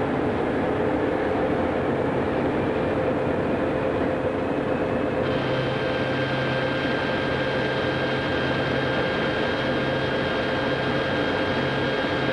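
Running diesel locomotive machinery: a steady mechanical drone, with a high whine added about five seconds in.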